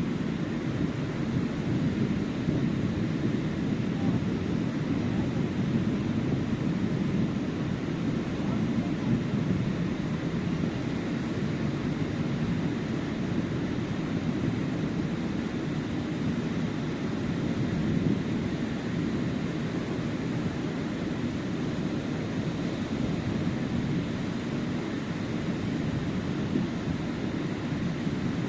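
Surf on a sandy beach: a steady low rumble of waves rolling in, swelling and easing gently without sharp crashes.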